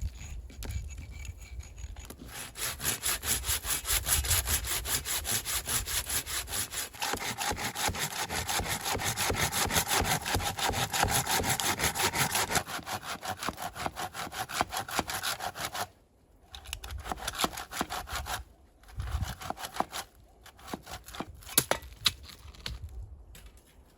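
Hand saw cutting through wood in rapid, even back-and-forth strokes that stop abruptly about sixteen seconds in, followed by a few scattered knocks and snaps of wood.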